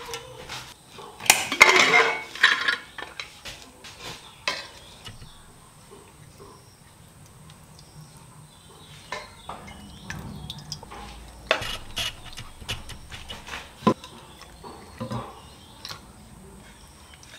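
Metal kitchen tongs and dishes clinking: scattered sharp clicks as the tongs knock against a pressure cooker pot and a plate while lifting out pieces of pork, with a louder clatter about two seconds in.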